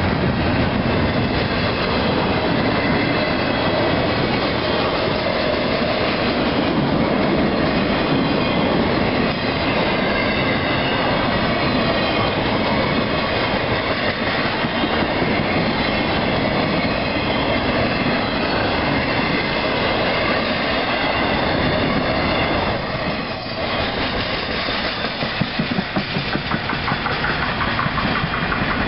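Intermodal freight train of double-stacked containers and trailers on flatcars rolling past close by, a steady rumble of wheels on rail. Toward the end the wheels clack evenly over rail joints.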